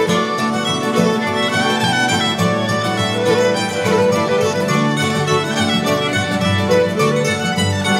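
Background music: a lively fiddle tune with a steady beat.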